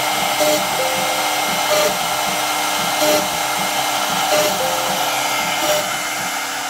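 Rovo 750x1000 CNC router running: the spindle whirs steadily while the stepper motors move the end mill from hole to hole, cutting a honeycomb of small holes into a pine board. A short cut, with the motors' tones changing, comes about every second and a quarter.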